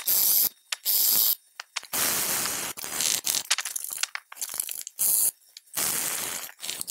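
Sargent plane blade being honed on a wet sharpening stone: a gritty scrape with each stroke, about one stroke a second, with short gaps between. The edge is still being worked because the marker ink on its very tip shows that part is not yet being honed.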